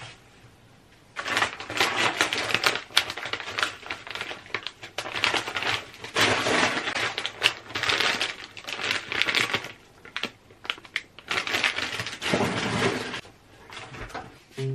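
Clear plastic bag crinkling and rustling as it is handled and taken out of a tote bag, in bursts with short pauses, starting about a second in.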